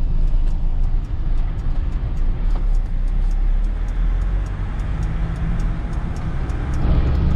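Delivery truck's engine and road noise heard from inside the cab while driving, a steady low rumble that grows louder near the end.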